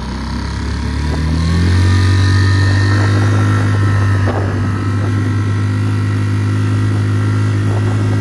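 Tohatsu 3.5 HP single-cylinder four-stroke outboard motor pushing an inflatable dinghy, revving up over about the first two seconds and then holding a steady pitch under way. It is turning an aluminium replacement propeller, and the note stays even with no surging.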